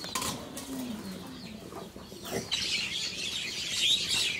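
Chickens clucking with small birds chirping; the chirping grows busier and denser a little past halfway.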